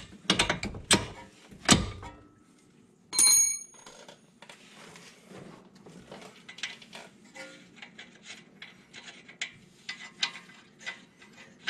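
Hand-tool work at the front suspension knuckle: a punch and bolts clicking and knocking against metal as the knuckle is levered into line and its bolts started. There are several sharp knocks in the first two seconds, one ringing metal clink about three seconds in, then scattered light clicks.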